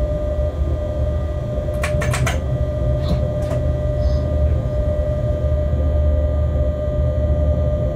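Freight locomotive cab in motion: a steady low rumble with a constant humming tone. About two seconds in comes a quick run of four sharp clicks, then a few single clicks.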